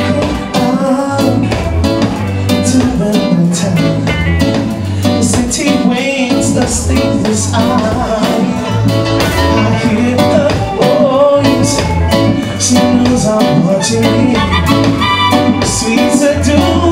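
Live reggae band playing: electric guitars, keyboards and drum kit over a heavy low end, with a male singer on the microphone.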